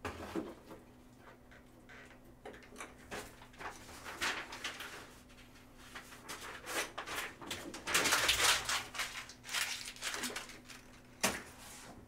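Handling noise on a table: irregular rustles and clicks, loudest about eight to nine seconds in, with a sharp click just after eleven seconds, over a faint steady hum.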